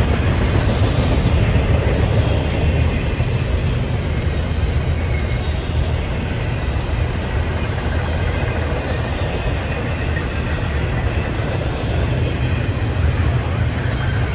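Norfolk Southern freight train rolling past, a steady low rumble of its wheels on the rails.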